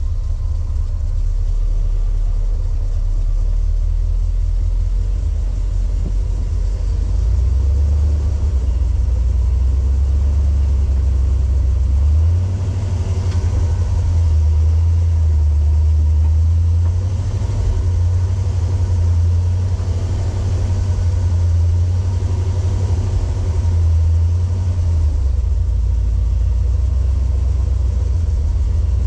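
Four-wheel-drive vehicle's engine running at low speed while crawling the rocky trail, a steady low rumble that steps up and down in pitch every few seconds as the throttle changes.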